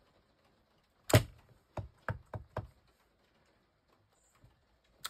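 Clear acrylic stamp block knocking down onto cardstock on a hard craft mat as a leaf stamp is pressed: one loud knock about a second in, then four lighter taps in quick succession, and a single click near the end.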